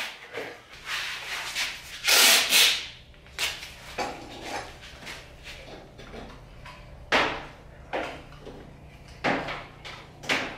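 Handling noises on the opened cabinet of a Samsung front-load washing machine: scattered scrapes, rubs and knocks of metal and plastic parts. The loudest is a longer rasp about two seconds in.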